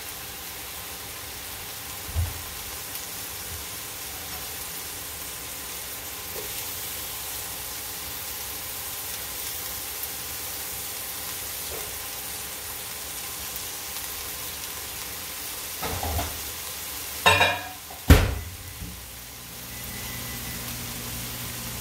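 Ground pork and onions sizzling steadily in a frying pan. There is a small knock about two seconds in, and a few clatters and a sharp knock near the end.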